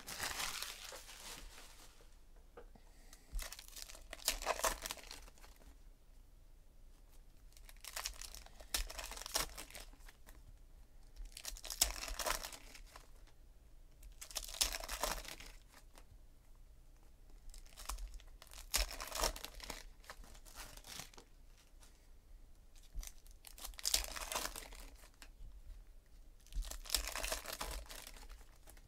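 Foil trading-card packs being torn open and the wrappers crinkled, one pack after another. A burst of tearing and crinkling comes every few seconds, with quieter handling between.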